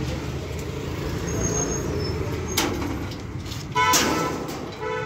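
Street traffic with a steady engine rumble, a sharp knock about two and a half seconds in, and a short vehicle horn toot near four seconds, sounding again briefly at the end.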